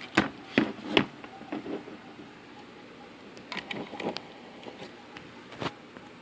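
Sharp light knocks and clicks, three close together in the first second, then softer scattered taps around four seconds in and one more near the end; no motor is running.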